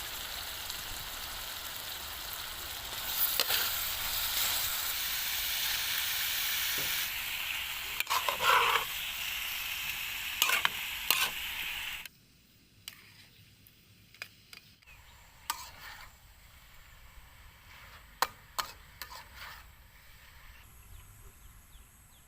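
Pig's blood frying in hot oil with garlic, chili and sauces: a steady sizzle, with the sharp scrapes and clicks of a utensil stirring the pan. About halfway through, the sizzle cuts off abruptly, leaving a much quieter stretch with a few scattered clicks and taps.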